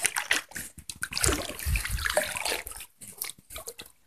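Shallow water splashing and sloshing as a dachshund wades and pushes its head into it, busy for about three seconds and then a few lighter splashes.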